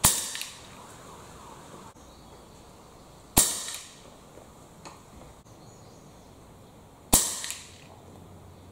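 Three air rifle shots, about three and a half seconds apart, each a sharp report that dies away over about half a second.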